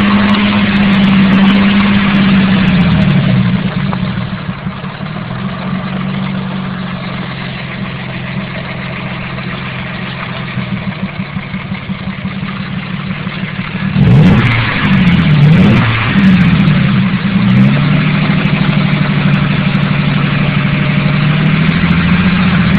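Mazda KL-DE 2.5-litre V6 engine running: it drops from raised revs to idle after about three seconds. About two-thirds of the way through it is revved up and down several times, then held at higher revs. The engine has a rod knock, by the owner's account.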